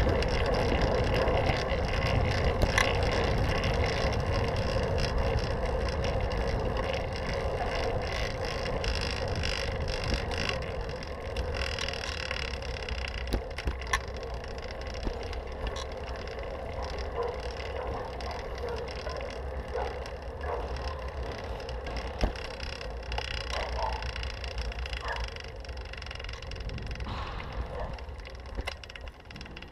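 Fixed-gear bicycle rolling along pavement, heard from a camera mounted on the bike: a steady rush of tyre and road noise, louder in the first third, then easing and falling off near the end as the bike slows. A few sharp clicks sound around the middle.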